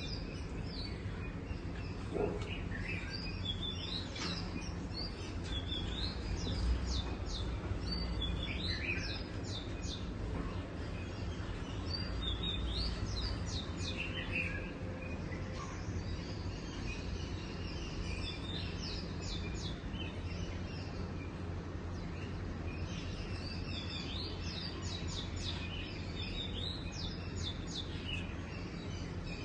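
Small birds chirping in bursts of quick repeated high notes, with pauses between the bursts, over a steady low background rumble.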